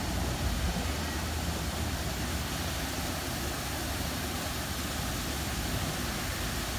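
Mark 7 touch-free car wash gantry spraying the spot-free rinse from its overhead jets onto a pickup: a steady hiss of water spray over a low hum.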